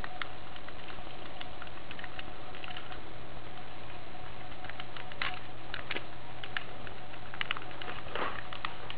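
Small scattered clicks and taps of a Godaikin BioJet toy robot's die-cast and plastic parts being handled and moved by hand, a few sharper clicks in the second half, over a steady low hum and hiss.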